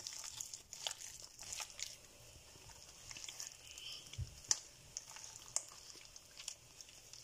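Soft slime being kneaded and squished by hand, with irregular faint crackles and sticky clicks.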